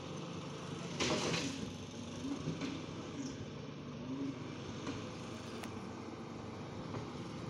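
Cleanaway garbage truck's diesel engine running steadily, its pitch rising and falling a few times. There is a short burst of hissing noise about a second in.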